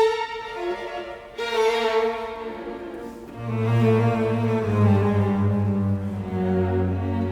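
Background music of bowed strings, cello and violin, playing sustained notes, with a low bass line coming in about three and a half seconds in.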